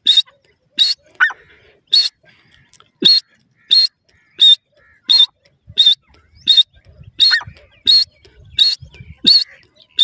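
Grey francolin (teetar) calling: a short, sharp, high-pitched call repeated steadily about every three quarters of a second, with a few softer falling notes between the calls.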